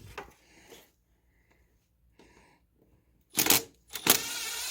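A few faint knocks, then near silence. About three and a half seconds in comes a short loud rustle, then a click and a steady mechanical whir with a slight wavering pitch.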